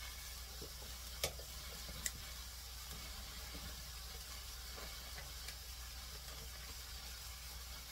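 Water and oil sizzling gently in a stainless steel wok of soybean sprouts and onion over low heat, a steady soft hiss. Two sharp clicks come about a second and two seconds in.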